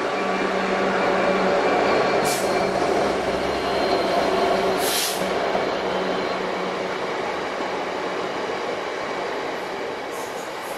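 A Freightliner Class 66 diesel locomotive passes close by with its two-stroke V12 engine running; the engine tone fades after about six seconds as the train of hopper wagons rumbles past over the rails. There are two brief high-pitched squeaks, about two and five seconds in.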